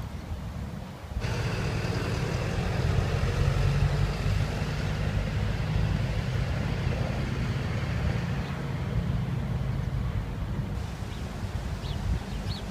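A motor vehicle's engine running: a steady low hum that comes in suddenly about a second in and fades near the end.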